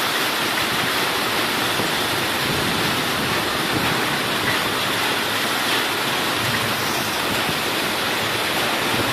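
Heavy rain pouring down in a thunderstorm, a dense, steady rush.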